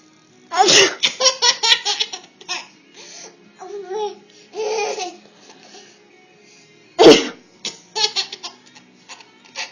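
A young child's playful sneeze followed by a run of giggles, twice: about half a second in and again about seven seconds in, with a little more laughing in between.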